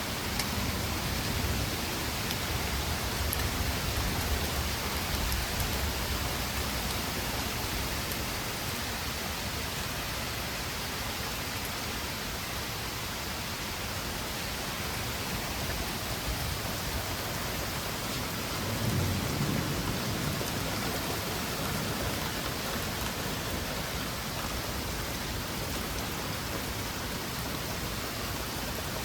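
Heavy rain pouring down steadily, with low rumbles of thunder in the first few seconds and again about two-thirds of the way through.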